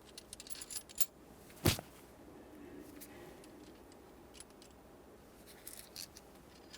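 Small metal parts being worked loose and handled: scattered light clicks, with one sharper clack a little under two seconds in, as the mounting bolts and upper clamp come off an ignition switch and lock cylinder assembly.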